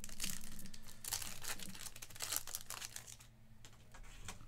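Trading card pack wrapper being torn open and crinkled, a dense rustling for about three seconds before it dies down.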